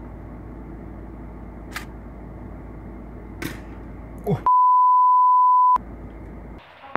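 A single steady, pure censor bleep lasting about a second and a quarter, starting sharply about four and a half seconds in, with the rest of the audio muted under it. Before it, a low steady background hum with two brief clicks.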